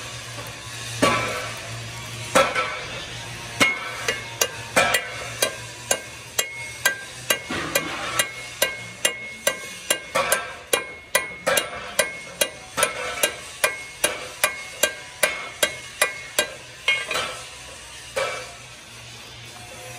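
Hammer striking steel over and over as a ball bearing is driven into its seat in a steel gearbox hub, each blow ringing. The blows start about a second apart, settle to about two a second, and stop a couple of seconds before the end.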